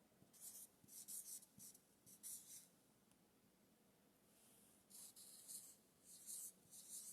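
Hand-writing strokes: short, faint scratchy strokes in two runs, with a pause of about two seconds in the middle.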